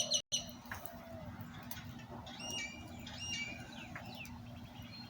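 Faint bird chirping: a few short chirps in the middle, over a steady low hum.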